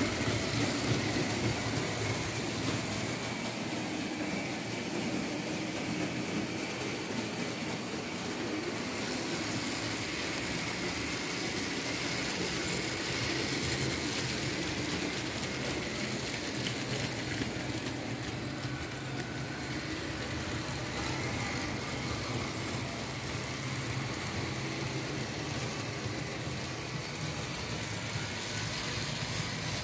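Märklin H0 model of a BR 74 tank locomotive running steadily with a train of open freight wagons: the electric motor whirs steadily under a fine, rapid clicking of wheels on the track.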